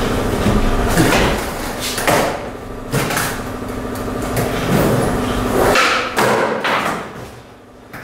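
Skateboard with acoustic foam on its deck in place of grip tape, its wheels rolling on a concrete floor with a low rumble. Sharp knocks of the board against the ground come about a second in, twice more a second apart, and again around six seconds. The rolling dies away near the end.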